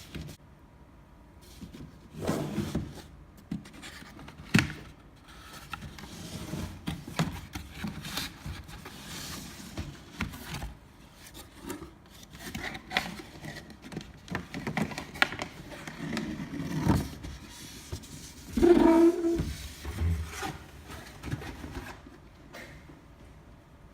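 A large cardboard figure box being handled and turned over: irregular scraping, rubbing and light knocks of hands and cardboard, with a louder clatter a little after three quarters of the way through.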